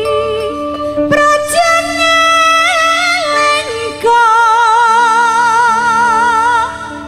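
A woman singing a Javanese song live with band accompaniment, drawing out long notes with wide vibrato; the longest held note starts about four seconds in and is let go near the end.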